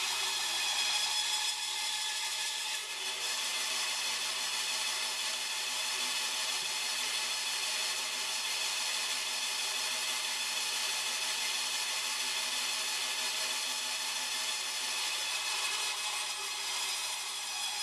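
Bandsaw running with a 3/8-inch blade, ripping through a dry, seasoned hardwood log: a steady sawing noise over the hum of the saw. The blade is finer than a log needs, by the owner's account.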